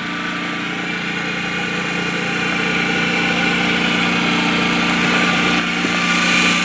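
Portable generator engine running at a steady speed, supplying backup power during a power outage; its hum grows gradually louder.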